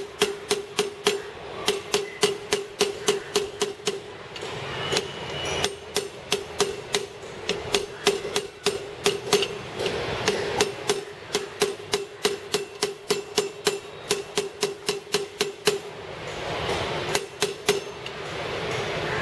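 A hammer tapping a steel spanner held against the outer race of a 6204 wheel bearing in a motorcycle front wheel hub, in quick runs of sharp metallic taps about three or four a second with short pauses between runs. The bearing has gone in cocked, and the taps are straightening it before it is driven home.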